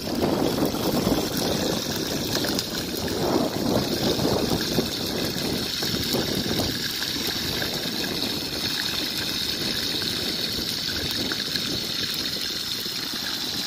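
Spiny lobsters sizzling in hot oil in a frying pan over a wood fire, a steady frying hiss. A lower rushing noise sits under it, louder in the first half.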